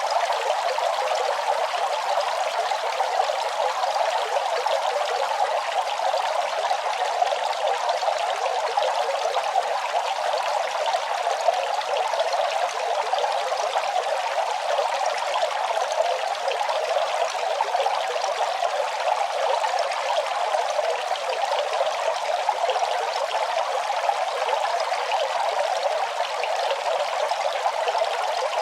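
Running water, trickling and splashing steadily without a break; the sound sits in the middle and upper range, with no deep rumble.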